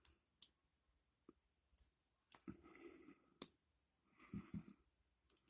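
Faint, scattered clicks of a Zone combination lock's number wheels being turned one detent at a time, with two short stretches of soft scraping from the lock being handled.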